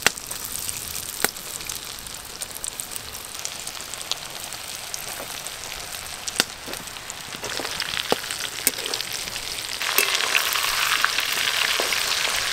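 Coated prawn pakoras deep-frying in hot oil in a wok: a steady sizzle with a few sharp pops, growing much louder about ten seconds in as more pieces go into the oil and it foams up.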